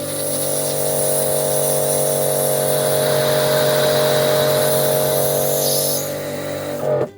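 Kärcher K5 pressure washer running: a steady motor and pump hum under the hiss of the water jet, cutting off suddenly near the end.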